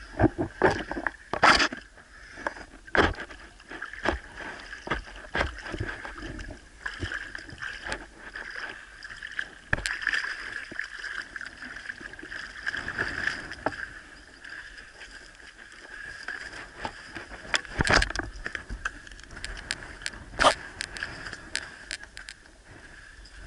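Underwater sound picked up by a Sony AS15 action camera in its waterproof housing: irregular sharp clicks and knocks over a steady high hum.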